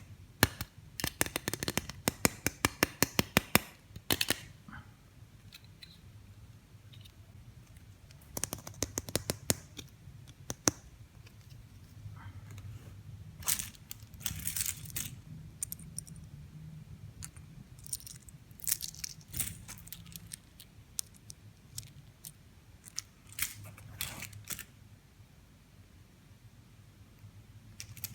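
Small plastic toy pieces being handled: bursts of sharp clicks and taps, a few seconds at a time, with quiet pauses between.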